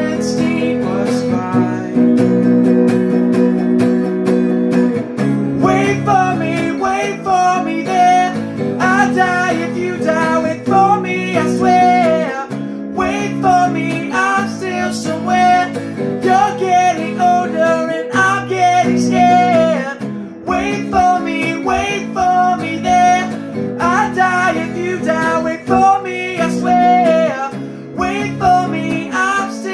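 Acoustic guitar strummed in steady chords, with a solo voice singing over it from about five seconds in.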